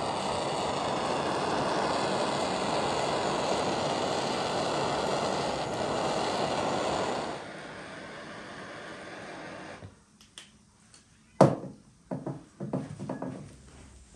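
Butane blowtorch flame hissing steadily as it singes the hairs off a raw turkey's skin. The hiss drops to a softer level about seven seconds in and stops near ten seconds. Then come a few knocks and rustles from handling the bird, the sharpest about a second later.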